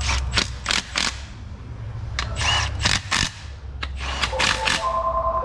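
Milwaukee Fuel cordless power tool running down intake manifold bolts in short bursts, with a steady motor whine near the end.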